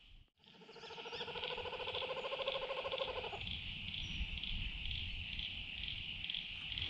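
Laughing kookaburra calling: a fast run of even, chuckling notes that stops abruptly a little over three seconds in, over a steady, high, pulsing trill in the background.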